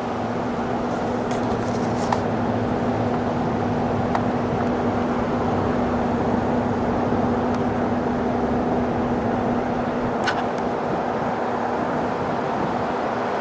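A vehicle engine running steadily, with a low hum that cuts out about ten seconds in, and a few light clicks.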